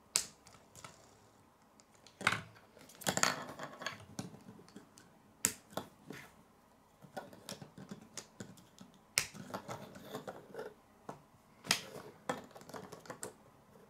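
K'nex plastic wheels and connectors being pushed onto rods by hand: about half a dozen sharp plastic clicks at irregular gaps, with soft handling rattle of the plastic parts between them.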